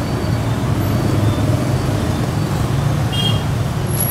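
Steady rumble of busy road traffic passing close by.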